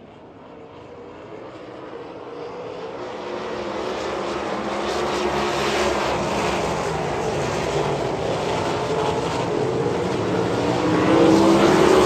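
Dirt-track sprint car engines droning on the track. They grow steadily louder over the first several seconds and louder again near the end.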